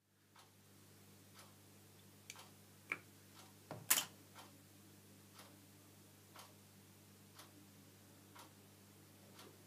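A clock ticking faintly and evenly, about once a second, over a low steady hum. Between two and four seconds in there are a few louder knocks and clicks of wooden toy parts being handled, the loudest about four seconds in.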